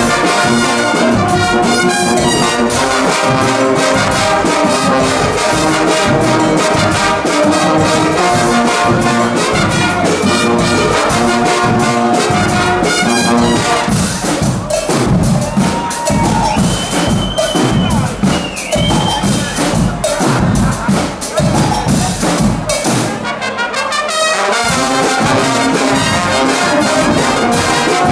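Guggenmusik band playing live: loud massed brass, with sousaphones, trumpets and trombones, over drums. About halfway through, the brass drops away for a drum-led passage, and the full band comes back in near the end.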